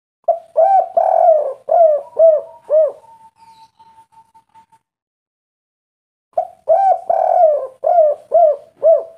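Spotted dove (derkuku) cooing: two phrases a few seconds apart. Each has two short notes, a long drawn coo, then three short clipped coos, the three-note ending of the 'kuk 3' song type.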